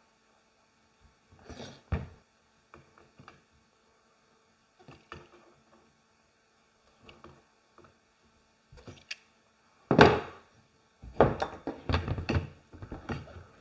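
Scattered knocks and clunks of hard objects being handled, the loudest about ten seconds in, then a quick run of clunks over the last couple of seconds.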